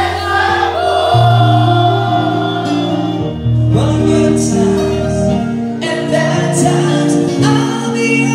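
Live band music through a PA system: a keyboard holding sustained chords over a bass line that changes note every second or two, with voices singing along.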